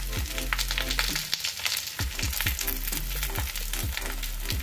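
Soaked sago pearls (sabudana) frying in oil in a steel kadai over a low gas flame: a light, steady crackling sizzle.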